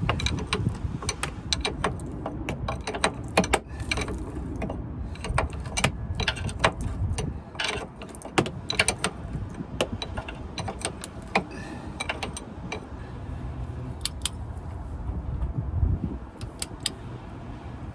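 Irregular metallic clicks and clinks of hand tools and metal parts being handled during car suspension work, over a low rumble that is heaviest in the first few seconds.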